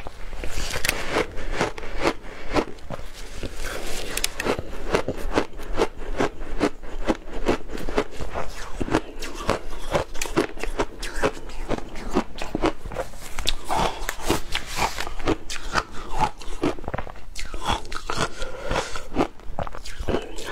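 Crunching and chewing of frozen passion fruit ice in the mouth: a rapid, unbroken run of crisp crunches as the ice is bitten and ground.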